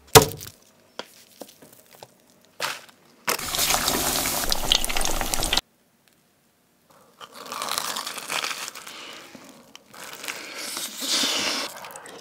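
A sharp knock, then breaded food deep-frying in hot oil: a loud, dense sizzle for about two seconds that cuts off abruptly. Some seconds later comes a stretch of crunching bites into the crisp panko crust.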